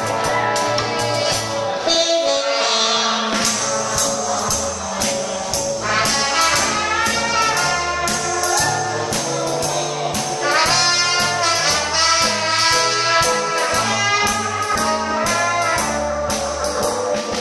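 Live band playing swing-style jazz for dancing: horns carrying the melody over a steady drum beat.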